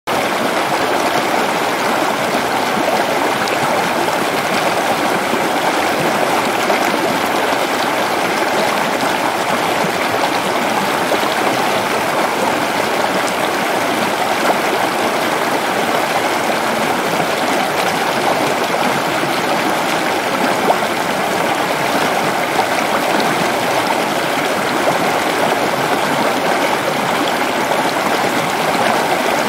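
Rocky stream rushing steadily as it cascades over boulders.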